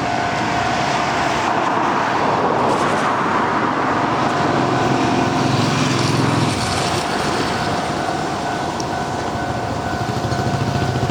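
Japanese level-crossing warning alarm sounding steadily with a two-tone ring while an electric commuter train passes over the crossing, its wheels and motors making a rushing, rumbling noise that swells about a second or two in.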